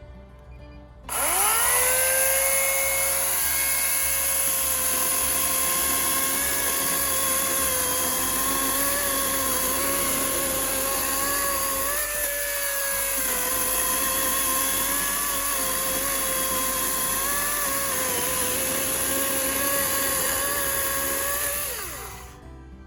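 Greenworks Pro 80V cordless chainsaw's electric motor and chain: it spins up with a quickly rising whine, runs at steady full speed for about twenty seconds with a brief small dip in pitch about halfway, then winds down with a falling whine near the end.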